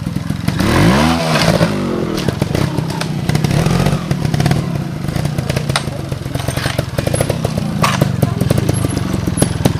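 Trials motorcycle engine running at low revs as the bike picks its way over rocks, with a quick rev that rises and falls about a second in. Scattered clicks and knocks run through it.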